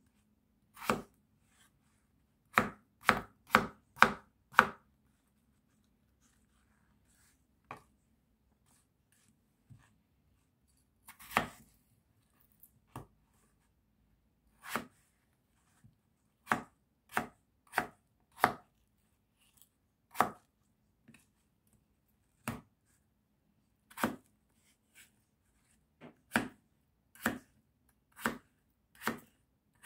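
Kitchen knife cutting through peeled raw potato and knocking on a plastic cutting board: separate sharp chops, a quick run of five about three seconds in, then single cuts every second or two.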